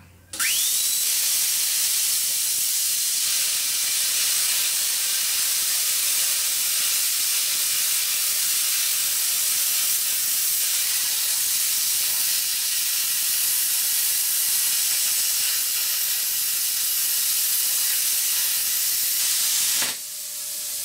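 Pilot-arc plasma cutter cutting through 10 mm steel plate on air from an external compressor at 4 bar. The arc starts abruptly with a brief rising whine, then hisses loudly and steadily as the cut goes on, and drops away near the end.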